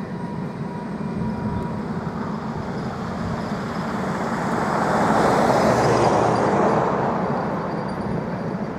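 Stainless-steel passenger carriages of a long-distance train rolling past on a curve, with steady wheel-on-rail noise. A thin wheel squeal from the curve dies away within the first couple of seconds, and the rolling noise swells louder in the middle before easing off.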